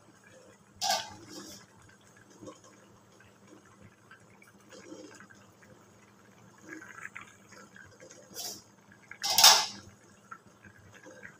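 Stainless steel pan and lid clanking: a sharp metallic clank about a second in, a smaller one later and the loudest near the end, over the soft bubbling of a curry simmering in the pan.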